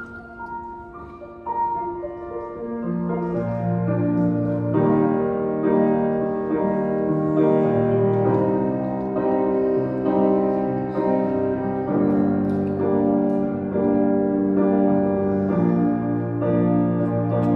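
Grand piano playing slow held chords with no singing, quiet at first and then fuller, with low bass notes coming in about three seconds in.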